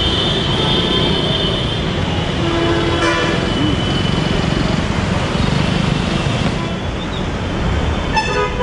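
Street traffic noise, with vehicle horns honking a few times: near the start, about three seconds in, and near the end.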